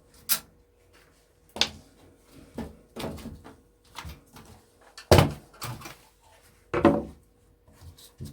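Irregular knocks and clatters of a Sky satellite box's casing and a screwdriver being handled while the box is taken apart, about eight sharp knocks in all, the loudest a little after five seconds in and another near seven.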